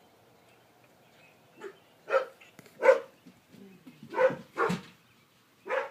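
Domestic cat chirping at birds: a series of about six short, sharp calls, about half a second apart, starting about a second and a half in.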